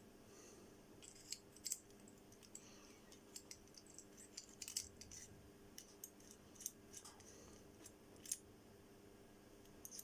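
Faint, scattered clicks and light metallic taps of small parts of a 1948 Transfo flint lighter being handled and fitted together during reassembly, over a low steady hum.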